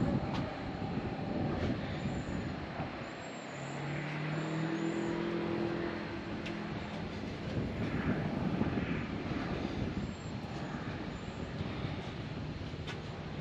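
Wind buffeting the microphone, a rushing noise that rises and falls. From about three and a half seconds in, a distant engine hum holds steady for about three seconds, and faint high chirps come and go.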